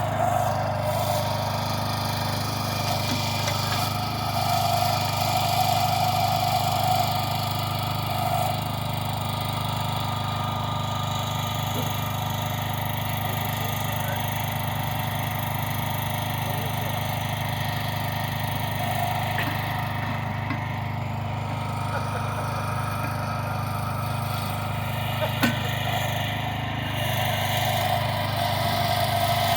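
Tractor engine running at a steady, even speed as the tractor creeps slowly along, with a single short click near the end.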